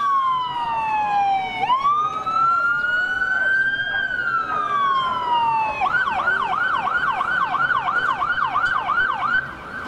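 Electronic police siren on a sheriff's patrol boat: a slow wail rising and falling, then switching about six seconds in to a fast yelp of roughly three to four cycles a second, which cuts off shortly before the end.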